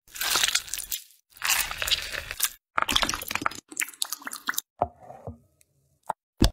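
Fresh strawberries being mashed with a pestle in a tall glass: two long wet, crunching squishes, followed by shorter crackly squelches and a couple of sharp clicks near the end.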